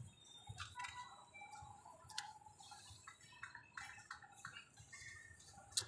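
Faint, scattered clicks and light taps from hands working tape along a window's trim moulding, with one sharper click near the end.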